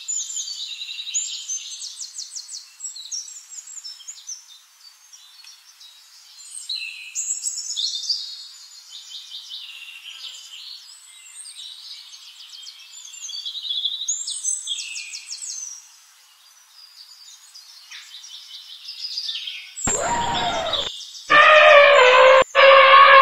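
Several songbirds sing rapid high trills and chirps. About twenty seconds in, an elephant trumpets three times, the last two calls louder.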